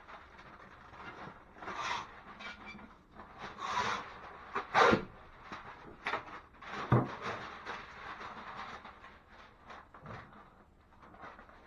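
Plastic sheeting and masking paper crinkling and rustling as they are laid out and taped down, with two sharp knocks about two seconds apart midway.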